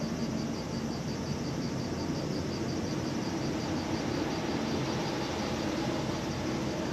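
Steady rushing noise with a faint low hum and a faint high pulsing a few times a second.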